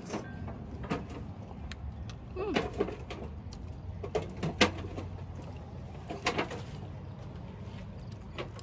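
A person slurping a shellfish from its shell and chewing: a scatter of short, sharp mouth sounds and clicks over a low, steady background hum.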